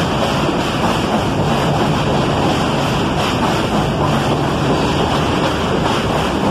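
F train of R160 subway cars pulling into an elevated station alongside the platform: a loud, steady rumble and rush of steel wheels on the rails, with a faint low hum underneath.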